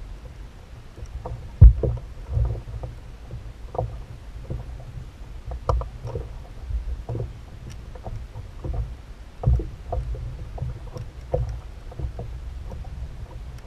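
A kayak rocking on a choppy sea: a low rumble of water against the plastic hull, broken by irregular knocks and thumps. A sharp thump just under two seconds in is the loudest.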